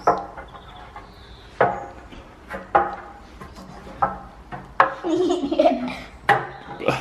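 Giggling and short wordless vocal sounds, with a few sharp knocks or clatters.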